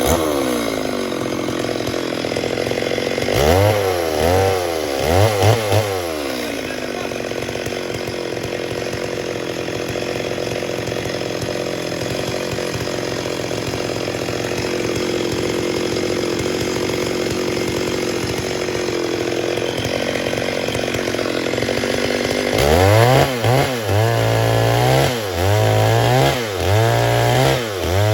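Stihl MS 382 two-stroke chainsaw revving up and down twice. It then runs at a steady pitch for about fifteen seconds, as if held in a cut through wood. Near the end it is revved in quick repeated bursts, about one a second.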